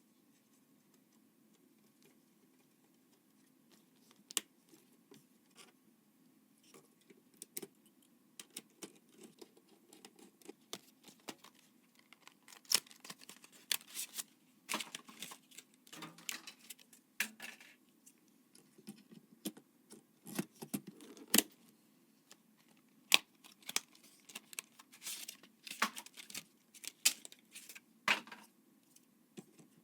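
Hands handling computer parts and their packaging: irregular small clicks, taps and short rustles, starting about four seconds in and growing busier after that.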